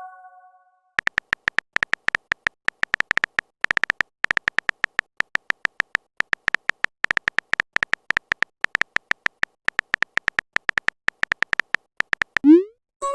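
Phone-keyboard typing sound effect: a long run of quick, uneven clicks, several a second, as a chat message is typed out. Near the end comes a short rising swoosh, the message-sent sound.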